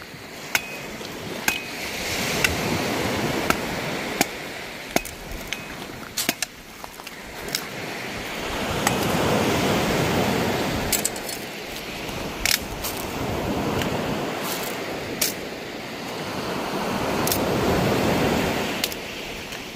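Waves washing onto the shore in slow swells, rising and falling every few seconds, with scattered sharp clicks and clinks over them.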